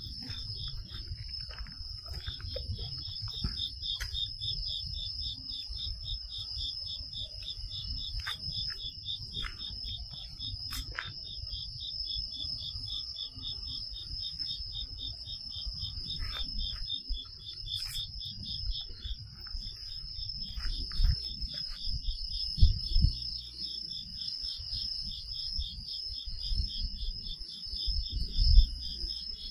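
Night insects calling in chorus: one steady high ringing trill and another fast, evenly pulsed trill just below it, with a low rumble and a few scattered clicks underneath.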